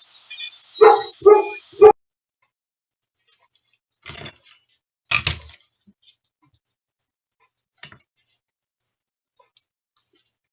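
A dog barks three times in quick succession over a high hiss that cuts off about two seconds in, followed by a few scattered clicks and knocks.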